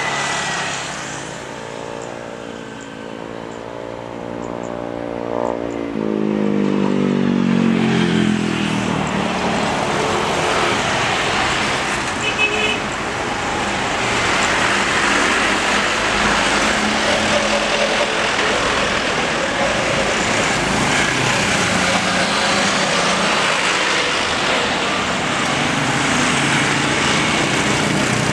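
Wide-body twin-jet airliner landing. A whining engine tone falls in pitch as it passes about five seconds in, then gives way to a loud, steady roar through the landing rollout.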